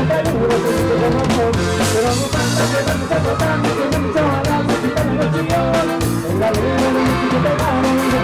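Live norteño band music: an accordion melody over electric bass and a drum kit keeping a steady dance beat.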